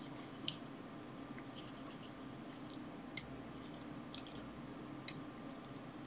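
Faint, scattered small ticks and rustles of thin wire being twisted together by hand, over a steady low room hum.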